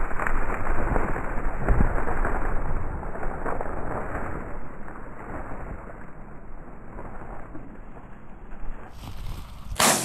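Dry stubble and grass rustling, with wind noise and a few low bumps on the microphone. Just before the end comes a single loud shotgun shot.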